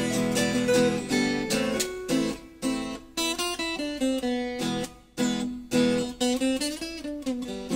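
Acoustic guitar music: plucked and strummed notes in a steady stream.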